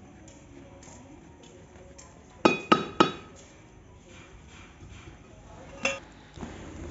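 Wooden stirring stick knocking against the rim of a metal cooking pot: three quick ringing clinks about two and a half seconds in, then one more near six seconds.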